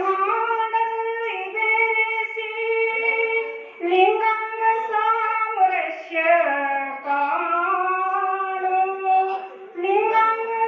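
A woman singing a Kannada devotional song about the Linga and Shiva, solo voice without accompaniment, drawing out long held notes that slide from pitch to pitch.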